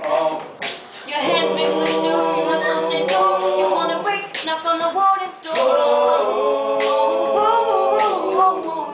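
Men's a cappella choir of young male voices singing held chords in harmony, phrase by phrase, with short breaks about a second in and again around four and five and a half seconds in.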